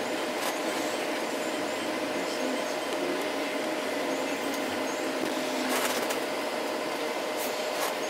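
Steady road and engine noise inside a moving vehicle, with a faint steady hum and a few light clicks, the plainest about six seconds in.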